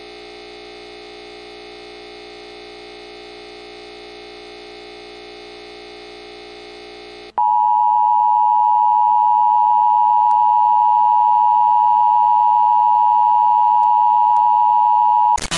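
A steady electronic drone of several held pitches. About seven seconds in it switches to a much louder, single pure tone like a TV test tone, which holds unchanged. Static noise breaks in right at the end.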